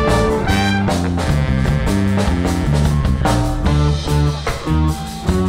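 Live funk band playing an instrumental passage: a walking electric bass line and drum kit with cymbals, over a held chord that drops out about half a second in.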